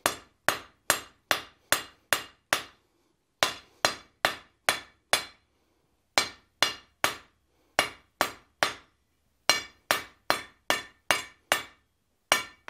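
Hand hammer striking a hot steel bar on an anvil, about two and a half blows a second in runs of three to seven with short pauses between. Each blow rings briefly off the anvil, drawing out and thinning the stem of a forged leaf shape.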